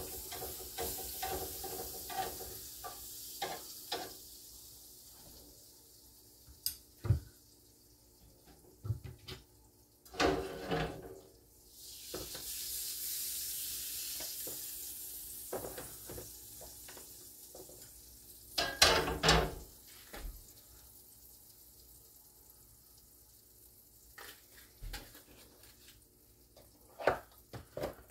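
Food sizzling in a frying pan, with utensils stirring, scraping and clattering against the pan. About twelve seconds in, the sizzle swells up louder, then fades over a few seconds.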